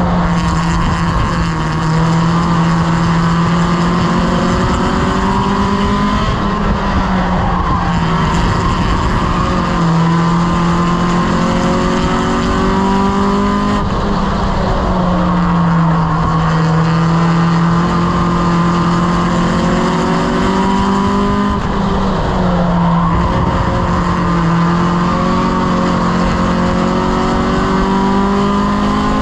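Strictly stock mini race car's four-cylinder engine at racing revs, heard from inside the cockpit. Its pitch climbs steadily, then drops as the throttle is lifted, several times over, lap after lap.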